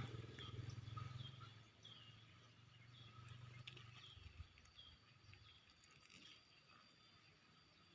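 Faint bird chirping, one short chirp about twice a second, while the low rumble of a passing motor vehicle fades away over the first few seconds.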